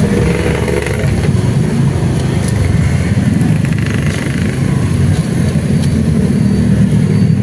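Steady low drone of motor traffic, with motorcycles running close by, and a few faint clicks.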